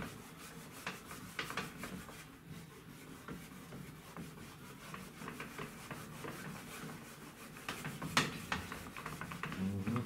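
Cloth rubbing back and forth on the plastic front panel of an LG washing machine, a dry scrubbing sound made of many short strokes, with one louder stroke about 8 seconds in. The cloth is soaked in dimexide, which eats away the yellowed top layer of the plastic as it is rubbed.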